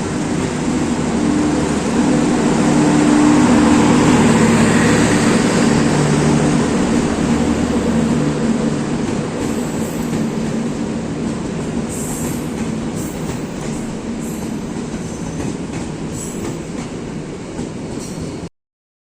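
A train passing close by, loudest a few seconds in and then slowly fading, with wheels clicking over the rail joints as it goes. The sound cuts off abruptly near the end.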